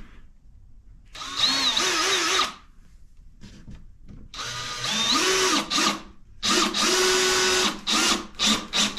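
Power drill running in three bursts of about a second each, its motor pitch rising and dropping, then a few short trigger blips near the end, as when driving screws into pine boards.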